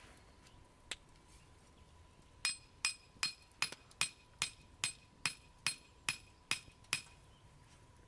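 Hammering on metal: a single tap, then a steady run of about a dozen ringing strikes, roughly two and a half a second, that stops after about four and a half seconds.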